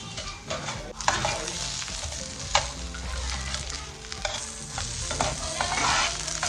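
Thick onion slices and garlic cloves sizzling in hot oil in a frying pan while metal tongs turn them, clacking sharply against the pan a few times, loudest about two and a half seconds in.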